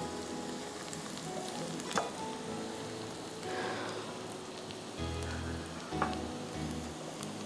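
Chopped onions sizzling as they fry in oil in a wok, with the spatula knocking against the pan twice as they are stirred. Soft background music with bass notes comes in near the end.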